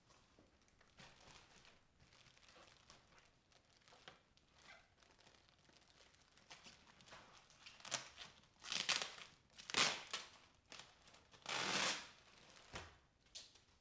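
Packaging being unwrapped: quiet rustling, then a few louder tearing and crinkling bursts about eight to twelve seconds in.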